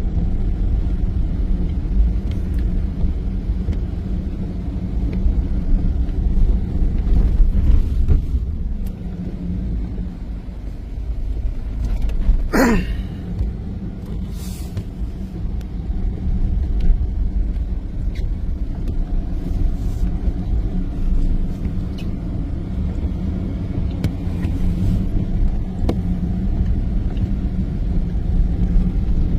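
A car driving on snow-covered roads: a steady low rumble of engine and tyres. About twelve seconds in there is one brief squeal that sweeps up in pitch.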